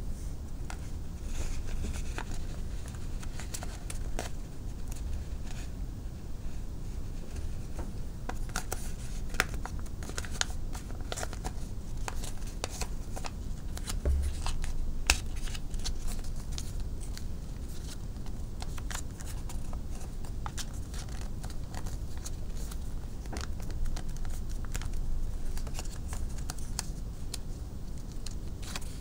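Sheet of paper being folded and creased by hand into an origami crane: a running stream of short crackles and rustles, with a few sharper clicks and low handling bumps.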